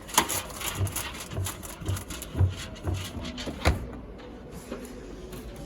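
A washing machine being handled by hand: a series of sharp clicks and knocks over a run of low thumps, easing off after about four seconds.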